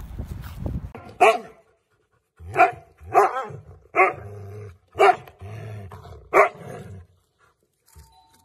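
A husky giving a run of short barking calls, about six in five seconds, each with a bending pitch, with a low steady sound running between them.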